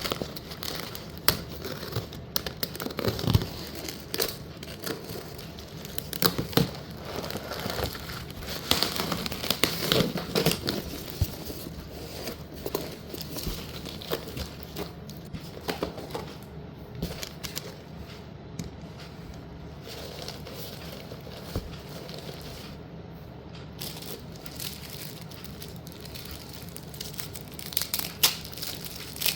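Packaging crinkling and tearing as a parcel of slate pieces is unwrapped, with many sharp clicks and knocks scattered throughout.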